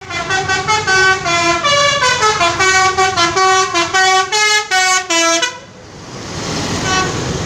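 Bus basuri telolet horn playing a fast melody of changing notes, then cutting off about five and a half seconds in, leaving a steady rushing noise.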